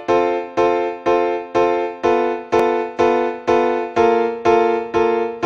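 Background music on a keyboard: one chord struck about twice a second, each fading before the next, changing to a new chord about four seconds in.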